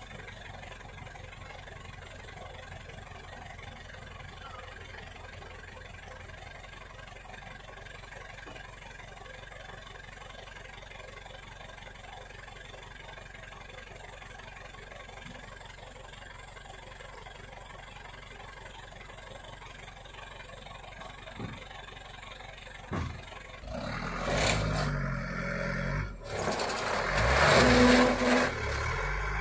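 Truck engine idling steadily, then near the end it revs hard in several loud surges as the truck is driven through deep mud.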